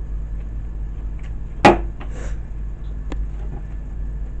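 Faint sounds of eating by hand over a steady low hum, with one sharp, loud, short sound about a second and a half in.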